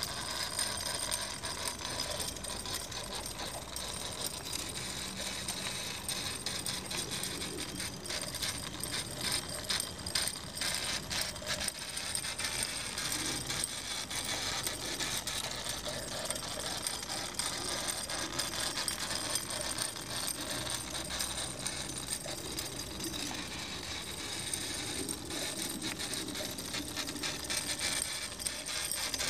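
Wilesco D36 toy live-steam road roller running and driving along under its own steam: a fast, even mechanical clicking and rattling from its small steam engine and gear drive over a steady hiss.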